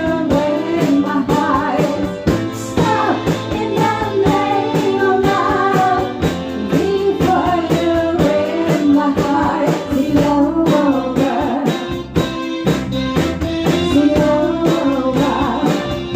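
Live band music with a woman singing the lead melody over guitar and a steady beat.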